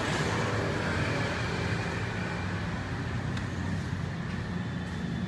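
Steady background rumble and hiss of road traffic.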